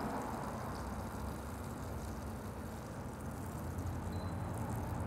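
Butter bubbling and sizzling softly as it melts in a cast iron skillet, over a steady low hum.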